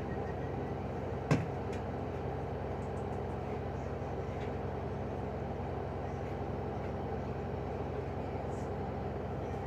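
LG washing machine on its cotton spin cycle, the drum spinning at high speed with a steady hum. A single sharp click about a second in.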